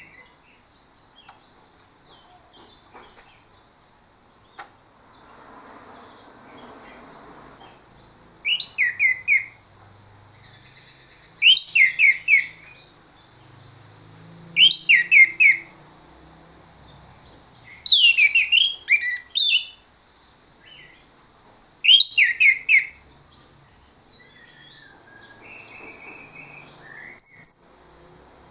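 Orange-headed thrush singing. From about eight seconds in it gives six short, loud phrases a few seconds apart, each a quick run of clear notes falling from high to lower pitch.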